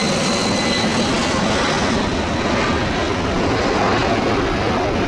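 Boeing C-17 Globemaster III's four Pratt & Whitney F117 turbofans at takeoff power, a loud steady jet roar as the transport climbs away. A faint high whine fades out in the first second or so, and the roar grows duller as the aircraft draws away.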